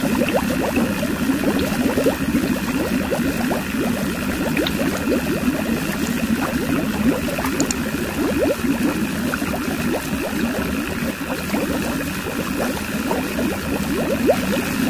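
Water pouring steadily from a small pipe into a filling concrete tank, a continuous splashing and gurgling. A steady hum from the toy's small electric water pump runs underneath.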